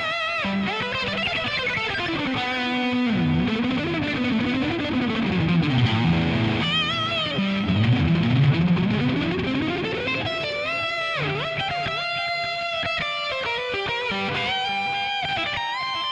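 Fender Deluxe Players electric guitar with Noiseless single-coil pickups played through high-gain distortion: fast lead runs with slides and wide vibrato, settling into held, wavering notes near the end.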